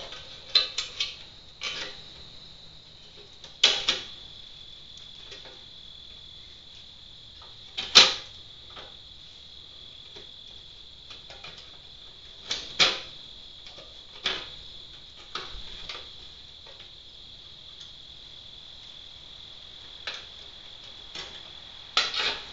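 Sharp clicks and knocks of a glass pane and the metal of a gas grill lid being handled and fitted into the lid's window, the loudest about eight seconds in. Under it runs a steady high chirring of insects.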